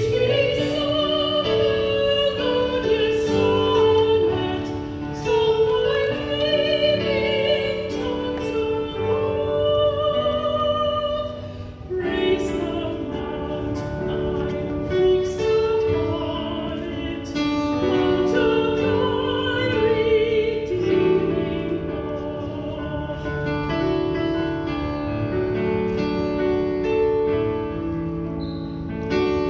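A woman singing a slow song with strong vibrato, accompanied by a digital piano. About two-thirds of the way through the voice drops out and the piano carries on alone.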